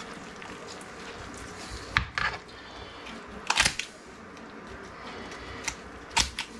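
Poultry shears snipping and crunching through turkey breast bone: sharp snaps about two seconds in, a cluster around three and a half seconds, and another near the end.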